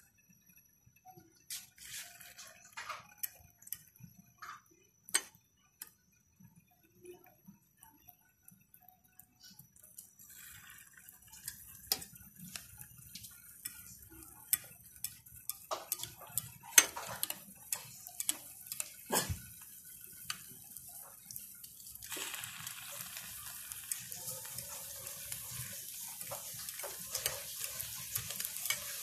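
Scattered sharp taps and clicks of a metal fork against a glass bowl and a frying pan as egg-coated banana-cheese balls are handled and dropped into hot oil. From about two-thirds through, the oil sizzles steadily around the frying balls.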